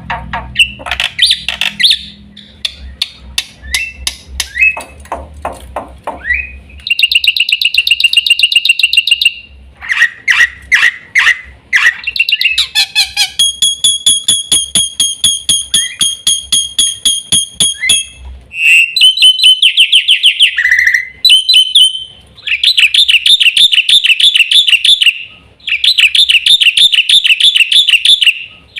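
Black-winged myna (jalak putih) singing a long, varied song: fast clicking notes, buzzy trills and whistled phrases. In the second half come several long runs of rapidly repeated rattling notes, each lasting a few seconds.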